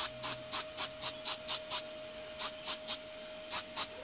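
Aerosol spray can of silver protective paint giving quick hissing squirts, about four a second, in three runs with short pauses between, coating a freshly welded nut and bolt.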